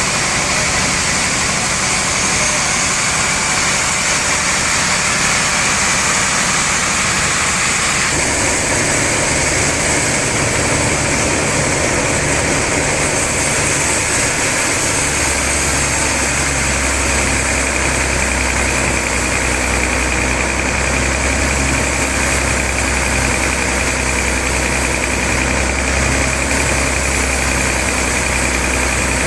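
Sawmill saw machinery running steadily and loud; its sound changes about eight seconds in, and a deeper hum comes in about halfway through.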